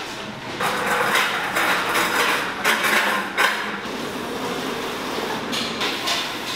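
Confectionery-factory work noise: irregular knocks and clatter, loudest in the first few seconds, over a steady machine hum.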